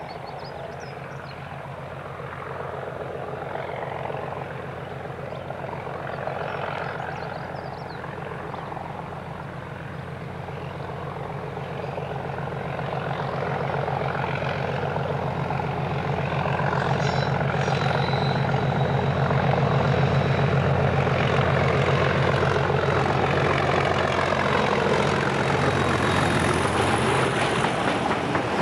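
Class 37 diesel locomotive's English Electric V12 engine grunting under power while hauling hopper wagons, a steady low drone that grows louder as it approaches. Near the end the locomotive has passed and the rumble of the hopper wagons rolling by takes over.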